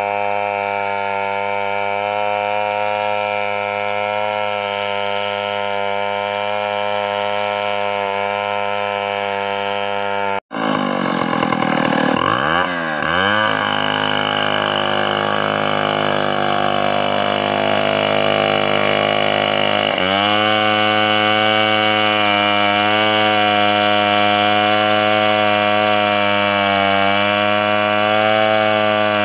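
Gasoline chainsaw running under load as it rips lengthwise along a coconut log in freehand milling. About ten seconds in the sound breaks off abruptly. The engine then rises and falls in pitch for a couple of seconds before settling back into steady cutting.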